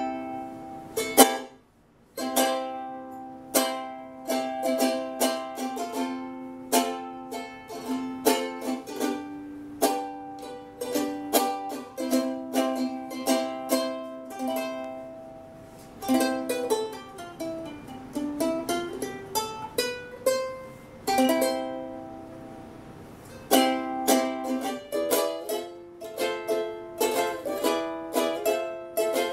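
G String Hawaiian Style soprano long-neck ukulele with a Hawaiian koa body, played solo: strummed chords mixed with picked melody notes. It stops briefly about a second in, and about two-thirds of the way through there is a run of notes going down and back up.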